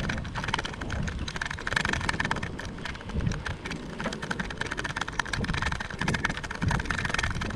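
Steady wind and movement noise on a moving action camera's microphone, with constant small rattles and clicks and a low rumble.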